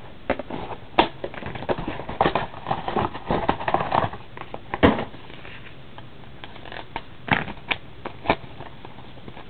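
Clear plastic shrink-wrap crinkling and crackling as it is torn off a trading-card box and crumpled in the hands: a dense run of crinkles and sharp clicks for about five seconds, then only a few scattered crackles.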